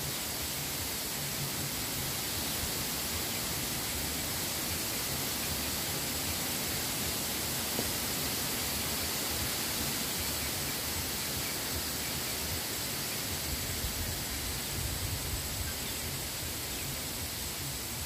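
Strong wind blowing through bamboo, a steady rushing hiss of leaves with a low, uneven rumble of gusts underneath.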